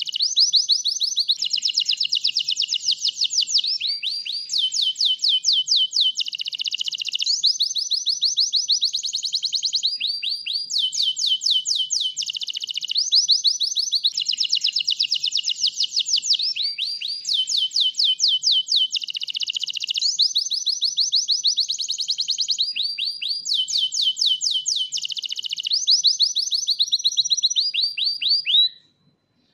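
White domestic canary in full song: a continuous, high-pitched song of fast trills, each run of rapidly repeated notes lasting a second or two before switching to the next. The song breaks off briefly near the end.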